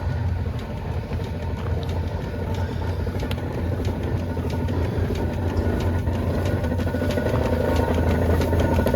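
Several antique hit-and-miss gas engines running together: a steady low chugging scattered with irregular sharp pops, getting gradually louder.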